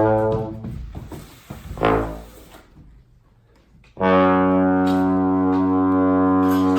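Trombone playing low notes in free improvisation: a note dying away in the first second, a short blast about two seconds in, a brief near-quiet pause, then a loud low note held steady from about four seconds in.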